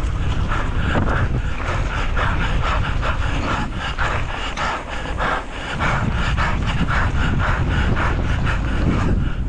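A four-cross mountain-bike rider panting hard mid-race, quick in-and-out breaths about three a second, over wind buffeting a helmet-mounted camera microphone and tyre noise on the dirt track. The wind rumble eases briefly about five seconds in.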